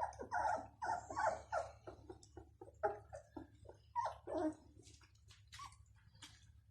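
Bloodhound puppies giving many short, high cries in quick, irregular succession, thickest over the first four and a half seconds and then sparse.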